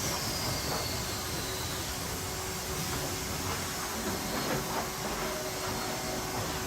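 Sawmill trimmer and board-sorting line running with a steady machinery din. A high saw whine falls in pitch over the first second or so, and a few light knocks come around the middle.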